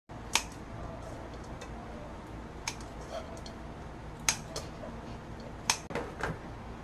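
Kitchen scissors snipping through dried shredded squid: about half a dozen sharp snips at irregular spacing.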